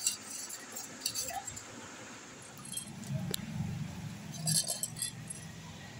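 Steel spoon clinking against a stainless-steel vessel: a few scattered light clinks, with a cluster of them about four and a half seconds in. A low rumble runs underneath from about halfway.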